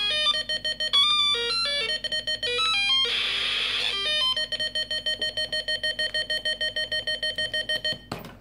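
Fisher-Price Alpha Probe toy's electronic sound board playing its space sound effects through its small speaker as its buttons are pressed: electronic beeps stepping up and down in pitch, a burst of hiss about three seconds in, then a fast run of steady beeps that stops near the end. The sounds work again now that dust and grime have been cleaned out of the button contacts.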